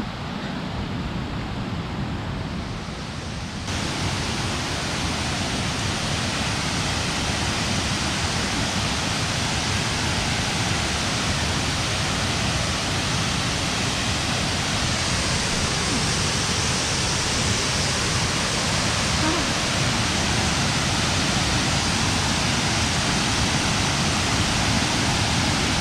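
Burgess Falls waterfall rushing, a steady dense roar of falling water. It gets abruptly louder and brighter about four seconds in.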